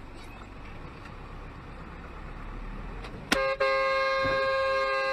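Steady road and engine rumble, then a car horn: a short toot a little over three seconds in, followed by a long, steady horn blast.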